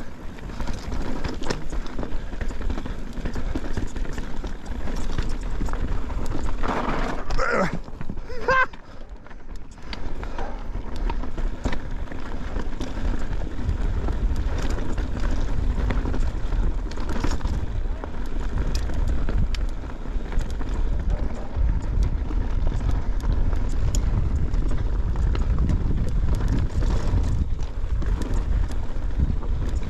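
Mountain bike ridden fast along a rough dirt trail: a steady rumble of wind on the camera microphone, with tyres crunching and the bike rattling and clicking over rocks.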